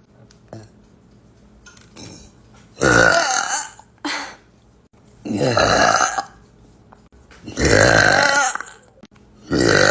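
A person burping loudly: four long burps of about a second each, a couple of seconds apart, with a short one just after the first.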